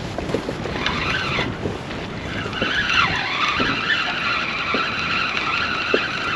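Penn Surfblaster 8000 fixed-spool reel being wound in, a whirring whine that starts briefly about a second in, then runs steadily from about two and a half seconds in, dipping in pitch once, with light knocks of the tackle underneath.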